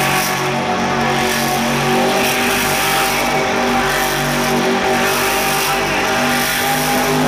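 Monster truck's supercharged V8 engine held at high revs while the truck spins donuts in the dirt, its note swelling and easing as the throttle is worked.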